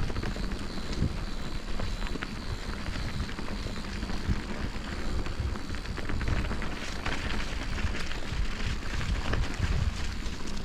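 Bicycle riding on a winter forest trail: steady crackly tyre noise on the ground, with a low wind rumble on the camera microphone.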